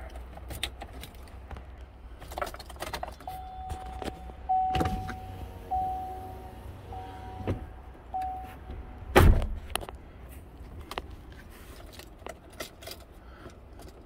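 Keys jangling and clicking in a Chevrolet Silverado's ignition as the key is turned to on, with a steady warning chime sounding in repeated pulses for about five seconds. Scattered knocks from the cab go with it, the loudest a sharp thump about nine seconds in.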